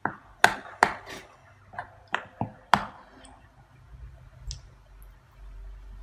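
A metal utensil clinking and scraping against the bowl while stirring flour into a wet egg-and-butter mixture for bread dough. There are about eight sharp clicks in the first three seconds, then softer stirring.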